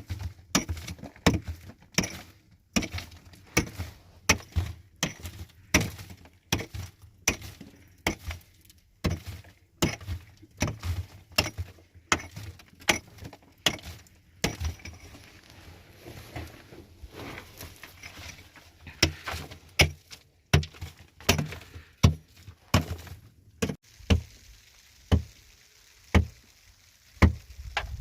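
Repeated blows of a hand tool, sharp knocks coming about one or two a second, lighter for a few seconds midway.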